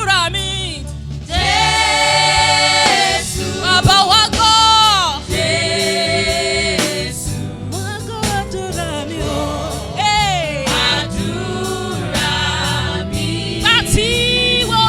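Gospel worship singing with musical accompaniment: voices holding long sung notes that bend in pitch over a steady backing.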